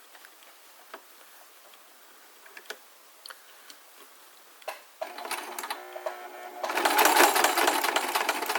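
Electric sewing machine stitching a reinforcing seam across a bag handle: a few faint clicks, then the machine starts about five seconds in, running slowly at first and then faster and louder for the last two seconds.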